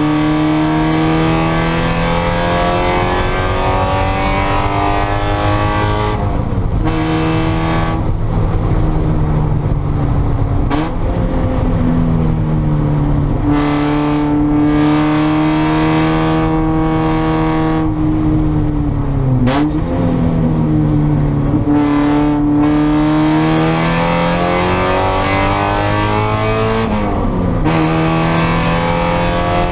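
Spec Miata race car's four-cylinder engine under racing load, its pitch climbing and falling as it is driven through the gears, with sudden pitch changes at gear changes about six times.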